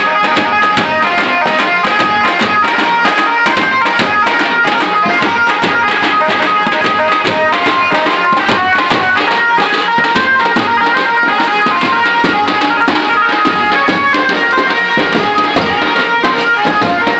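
Traditional Indian devotional music with fast hand-drum beats under a melody of held notes.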